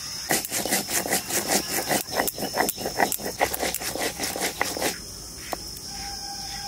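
Stone roller rubbed quickly back and forth over a sil grinding slab, crushing whole cumin seeds into paste: a fast, rhythmic run of gritty scraping strokes that stops about five seconds in. Insects drone steadily in the background.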